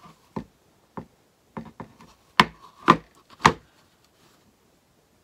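Light wooden knocks as the wooden breadboard decoration and its utensils are handled and bumped against a wooden worktable: a few soft taps, then three sharper knocks about half a second apart.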